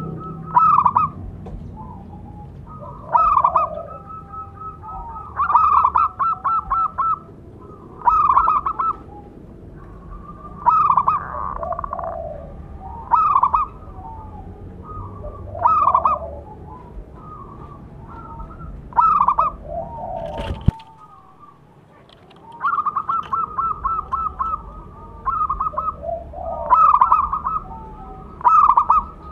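Zebra dove (perkutut) cooing: short phrases of quick, staccato coo notes, repeated every two to three seconds.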